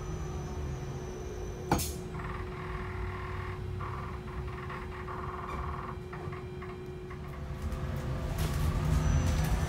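Upper-deck cabin sound of a Wrightbus StreetDeck Hydroliner hydrogen fuel-cell double-decker bus on the move: a low rumble with a steady hum, one sharp knock about two seconds in, and intermittent rattling of the fittings. The rumble grows louder near the end.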